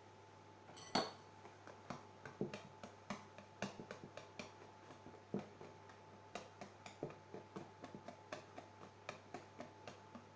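A utensil clicking and tapping irregularly against a mixing bowl while chiffon cake batter is being mixed, two or three knocks a second with one louder knock about a second in, over a faint steady hum.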